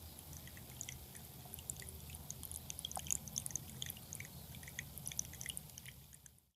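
Water trickling and dripping in a small pump-driven fairy-garden water feature: many small droplet splashes over a low steady hum, fading out near the end.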